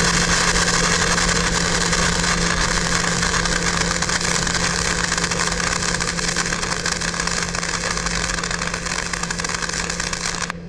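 AC TIG arc from an EWM Tetrix XQ 230 AC/DC welder on a green pure-tungsten electrode, running on the balling function to form a ball on the tip: a steady buzzing hum with hiss that cuts off suddenly near the end.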